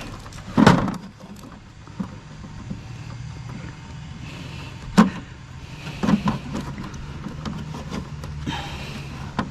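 A vehicle engine idling steadily, with several sharp knocks and clunks as a dehumidifier is handled and opened up.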